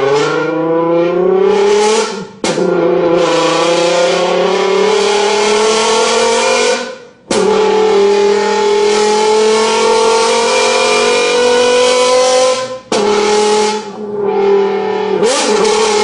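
A person imitating a car engine with their voice: long buzzing tones that climb slowly in pitch, like an engine revving, cut off by short breaks every few seconds.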